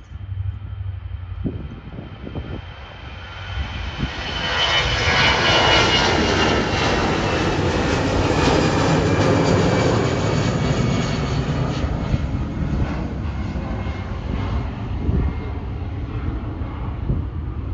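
Jet airliner passing the runway: its engine noise swells to a peak about five seconds in, with a high whine that falls slightly in pitch, then fades slowly into a long rumble.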